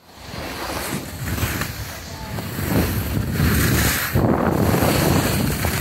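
Wind rushing over the microphone of a camera carried by a skier moving downhill, mixed with the hiss of skis on snow. The noise swells and eases in surges and grows louder about halfway through.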